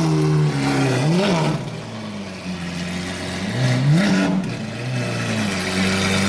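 Lamborghini Aventador SVJ's naturally aspirated V12 running at raised revs, with a quick throttle blip about a second in that drops back to a lower, steady note. A second short rev comes about four seconds in as the car pulls away at walking pace, then the engine settles to a steady low run.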